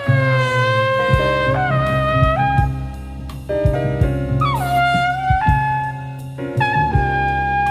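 Live jazz with a trumpet playing the lead, its phrases falling in long downward slides between held notes, over bass and drums. It is a cassette recording taken off an FM radio broadcast.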